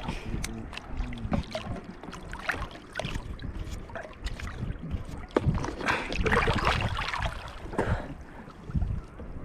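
Shallow sea water splashing and sloshing around people working a fishing net, with wind rumbling on the microphone; the splashing is loudest about six seconds in.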